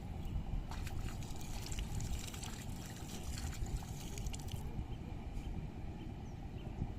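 Water splashing and trickling for about four seconds, then stopping, over a steady low rumble of wind on the microphone.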